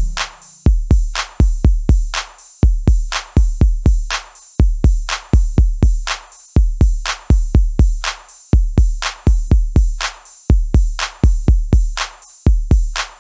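Electronic drum-machine beat with no melody: a deep booming kick with a sharp click, struck in a repeating syncopated pattern.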